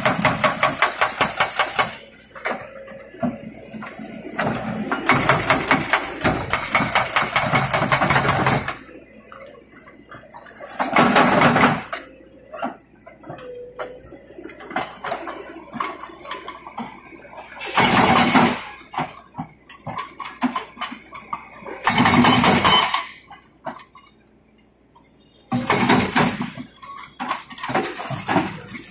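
An excavator-mounted hydraulic breaker hammer strikes concrete rubble in rapid, evenly spaced blows, several a second. It works in bursts lasting from a second to a few seconds, and the excavator's engine runs more quietly in the pauses between them.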